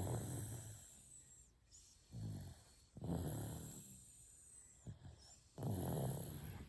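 A baby snoring in its sleep: four snoring breaths, with quiet pauses between them.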